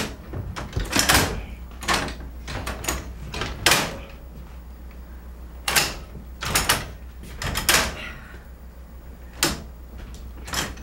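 Heavy levers of a mechanical interlocking machine being thrown by hand, giving a dozen or so irregular clanks and knocks from the levers, their latches and the rod linkage. The levers work switches, locks and derails through long, poorly maintained rods and are stiff to move.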